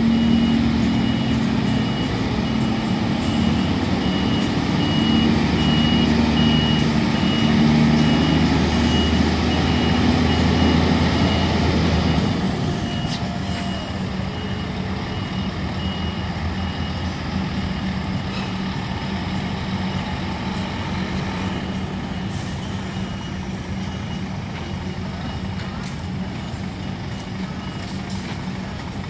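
Scania P360 tractor unit with its DC11 diesel engine running under load as it manoeuvres, its reversing beeper sounding in a steady series. About twelve seconds in, the engine drops back to a quieter steady run while the beeper keeps going, fainter.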